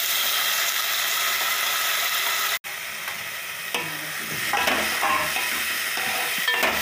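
Mustard seeds and curry leaves frying in hot oil, a dense, steady sizzle and spatter of tempering. It breaks off abruptly for an instant a little over two seconds in, then carries on slightly quieter.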